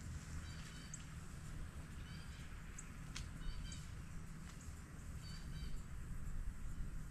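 A bird calling in short bursts of high chirps that recur about every second, over a steady low rumble.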